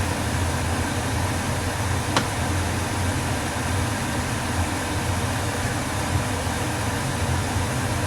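Steady low hum and rushing noise of a pot of broth boiling on a kitchen stove, with one sharp click about two seconds in.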